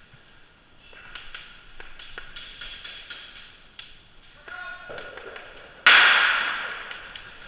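Airsoft gunfire indoors: scattered sharp cracks and taps of shots and BB hits. About six seconds in comes a sudden loud blast that dies away over a second or so.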